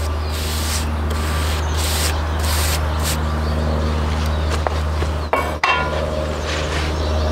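Hand sanding on a weathered wooden frame: several scratchy back-and-forth strokes of sandpaper on wood in the first three seconds. About five and a half seconds in comes a sharp knock and clatter, and a steady low hum runs underneath.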